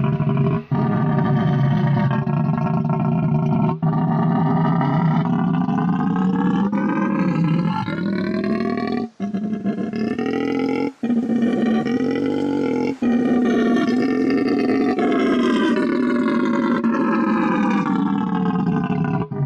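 Fan-made kaiju roar sound effect: long, continuous monster roars with a deep rumble under a pitched, layered tone that swells slowly up and down, broken by a few short gaps.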